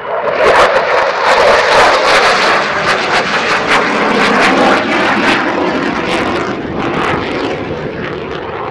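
F-16 fighter jet passing overhead: a loud jet-engine rush with crackling, which swells quickly at the start, holds for several seconds, then slowly fades as the jet moves away.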